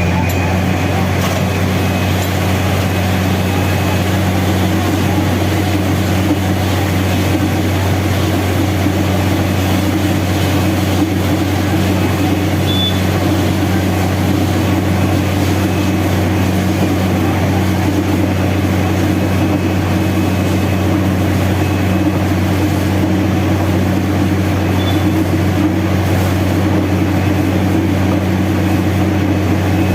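Borewell drilling rig running steadily, a loud, unchanging deep mechanical hum.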